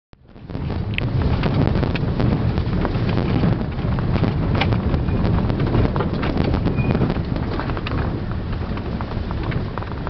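Cabin noise inside a van driving over a bumpy unpaved dirt road: a steady low drone of engine and tyres with frequent small knocks and rattles from the rough track.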